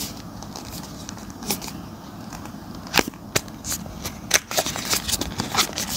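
A small cardboard box handled and worked open by hand: scattered sharp clicks and taps of fingers and nails on the card, several of them in the second half.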